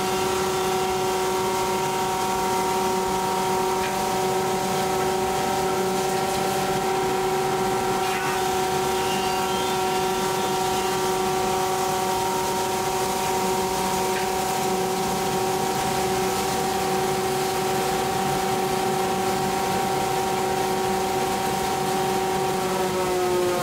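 Weinig Cube 3 automatic four-sided planer running: a steady whine of several held tones over a rushing noise. Just before the end the whine starts to fall in pitch as the machine runs down.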